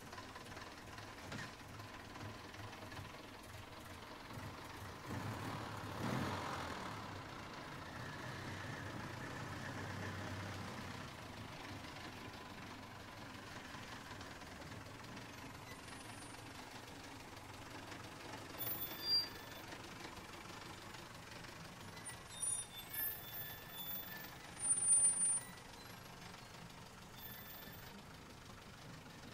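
A 1927 Renault NN rolling slowly down a steel ramp: a faint low rumble of the car. A few short high-pitched squeaks come in the second half.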